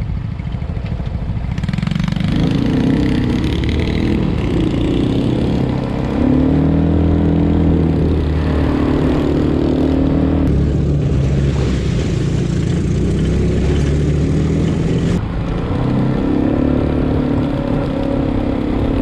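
200cc ATV's single-cylinder four-stroke engine running under load, heard from on board. It picks up revs about six seconds in, eases off briefly near the fifteen-second mark, then pulls again.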